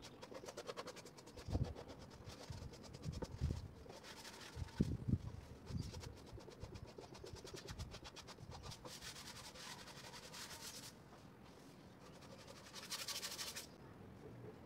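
Hand sanding block rubbed quickly back and forth along the edges of a plywood box, in runs of fast, even strokes with pauses between, plus a few dull low knocks.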